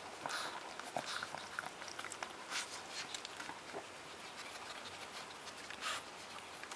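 Twelve-day-old Shih Tzu puppies nursing and shuffling against their mother: soft, irregular smacking clicks and rustling in fur and bedding.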